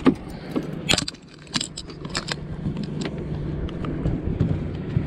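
Scattered clicks, knocks and rattles of fishing gear being handled aboard a boat, over a steady low hum that comes up about a second and a half in.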